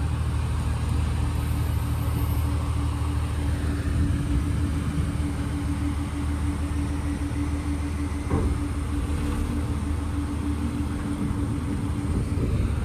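Engine running steadily, a low drone with a steady hum, and a brief faint knock about eight seconds in.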